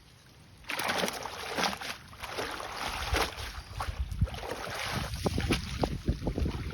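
Water splashing and sloshing, starting suddenly under a second in, with low rumbling and a few short knocks in the second half.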